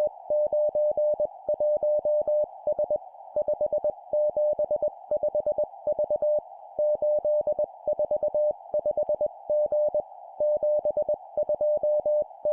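Morse code (CW) sent at 20 words per minute as a steady single tone keyed on and off in dots and dashes, in groups of four characters (three digits and a letter) separated by short pauses. A steady hiss runs under the tone throughout.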